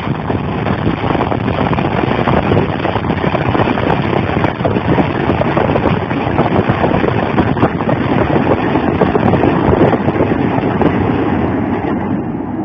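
BM-27 Uragan multiple rocket launcher firing a salvo of 220 mm rockets: a loud, continuous rush of rocket-motor noise as the rockets leave in quick succession, easing slightly near the end.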